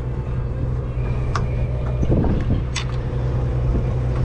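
A party boat's engine running with a steady low hum, with a few short sharp clicks over it around the middle.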